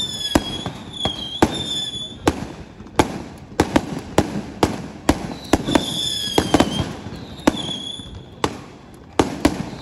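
Aerial fireworks bursting in a rapid, irregular series of sharp bangs and cracks, with short high whistling tones several times in between.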